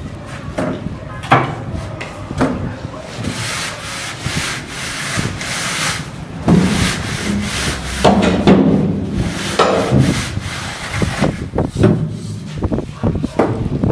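A long straight edge scraping across wet cement render on a wall in a run of rough strokes, louder in the middle, as the render is screeded flat.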